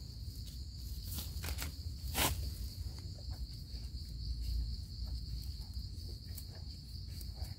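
A steady high-pitched drone of insects, with a few short, soft scrapes from a knife cleaning soil off the base of a freshly dug mushroom; the sharpest scrape comes about two seconds in.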